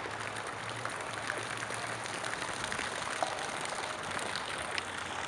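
Steady rushing background noise with faint scattered ticks.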